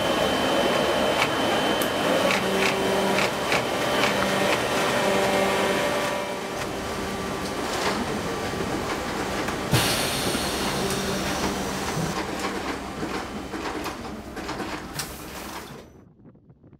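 Wetsuit workshop machinery: an industrial sewing machine running, rattling and clicking over a steady hum, then general workshop machine noise with a sharp click about ten seconds in. The noise fades out near the end.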